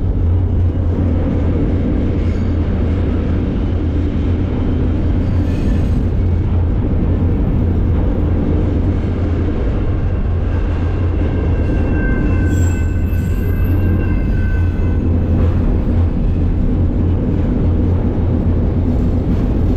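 Freight train rolling along the rails, heard from aboard a car: a steady, heavy low rumble. A faint high squeal joins in about ten seconds in and fades out by about fifteen seconds.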